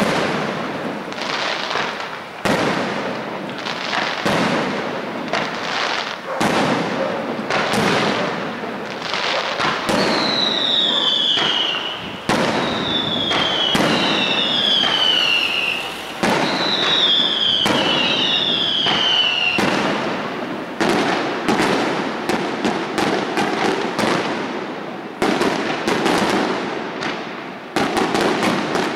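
Aerial fireworks shells bursting one after another with bangs and crackle. In the middle comes a string of about five whistles, each falling in pitch, and near the end the bangs come much faster.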